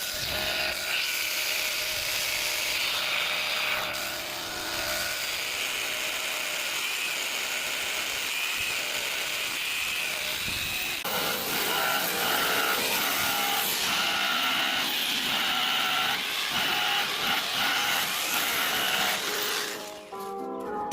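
Handheld power tool grinding and polishing sandstone, a steady grinding noise that starts abruptly. A few steady whining tones join in about halfway through, and it drops away just before the end.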